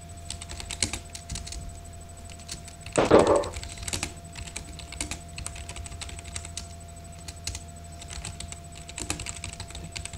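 Typing on a computer keyboard: quick runs of key clicks as a chat message is typed, with one louder short noise about three seconds in. A steady electrical hum runs underneath.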